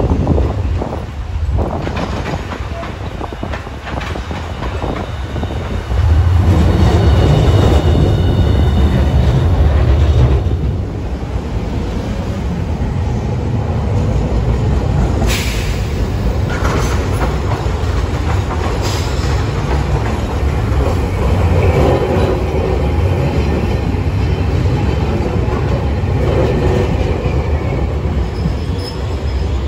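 Hiroden streetcars running on street track: a steady rumble of wheels and motors that swells for about four seconds a quarter of the way in, with a brief high wheel squeal then and a sharp click about halfway through. Streetcar No. 703 rolls past close by near the end.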